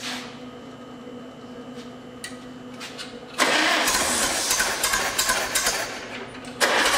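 Farmall C tractor's four-cylinder engine being started: after a quiet steady hum, it suddenly cranks and fires loudly about three and a half seconds in, drops off briefly near the end, then picks up again.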